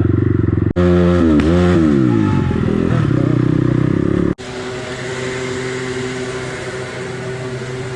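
Crossfire CX250R dirt bike engine revved, its pitch climbing and dropping twice, then running steadily and quieter after an abrupt cut.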